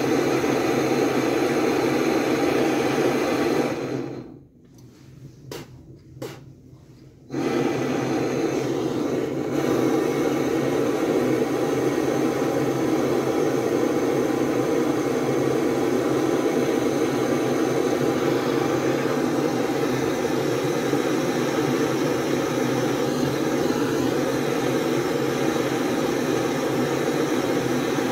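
Gas torch flame burning steadily against a steel part held in a vise, heating it so it can be shrink-fitted onto a chilled shaft. The sound cuts out about four seconds in, with a few faint clicks, and comes back about three seconds later.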